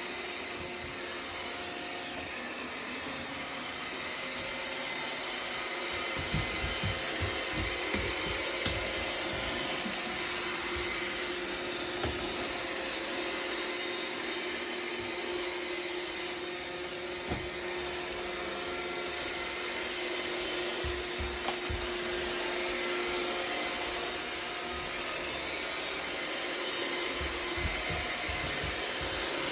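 iRobot robot vacuum running with a steady motor and brush hum, with scattered low knocks now and then.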